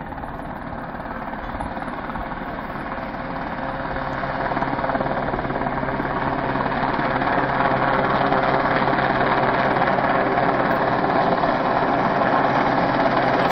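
Yellow rescue helicopter flying toward the listener: a steady rotor and engine drone that grows louder as it comes closer.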